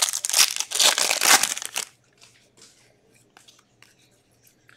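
Trading cards being slid and flipped against each other in the hands: a dense rustle and scrape of card stock for about two seconds, then a few faint taps.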